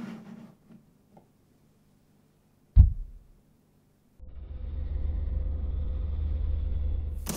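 A few soft plastic clicks near the start, a single loud low thump about three seconds in, then a steady low rumbling drone from about four seconds in.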